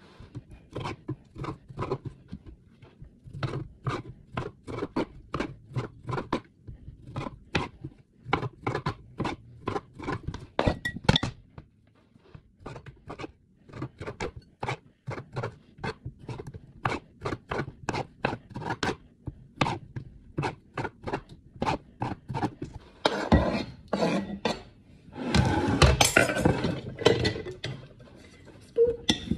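Kitchen knife chopping cherry tomatoes on a cutting board: a long run of quick, sharp knocks against the board. Near the end comes a louder stretch of scraping and clinking as the chopped pieces go into a glass Pyrex bowl.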